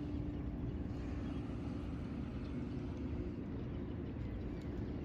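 Steady low rumble with a constant hum, as of a motor vehicle running.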